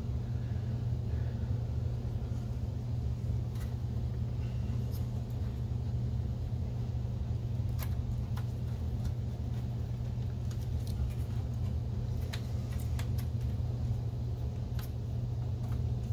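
Steady low hum of room background noise, with scattered light clicks and taps from a hand screwdriver turning screws into the projector's chassis.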